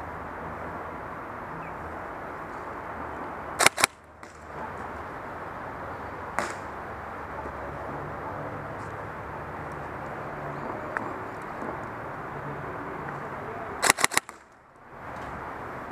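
Airsoft rifle shots: two or three in quick succession about three and a half seconds in, a single shot around six seconds, and a fast burst of about four shots near the end, over a steady background hiss.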